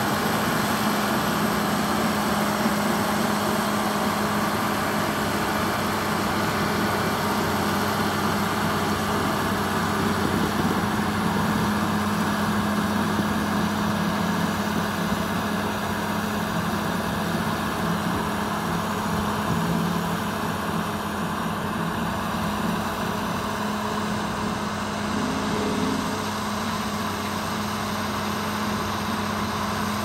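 Diesel engine of a single-drum road roller running steadily as the machine drives over loose earth, with a strong steady hum under a dense mechanical clatter, easing off slightly in the second half.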